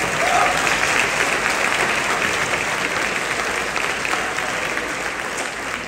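Concert audience applauding: many hands clapping together, loudest about half a second in and then slowly dying down.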